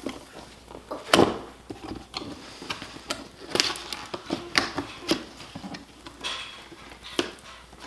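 A cardboard toy box being handled and pulled at as it is opened: scattered knocks and clicks, the loudest about a second in.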